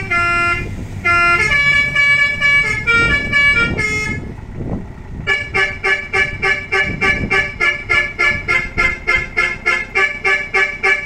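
Electric 'basuri' multi-tone musical horn playing a melody of held notes that change pitch, then, after a short break about five seconds in, sounding one chord in fast repeated toots, about three a second.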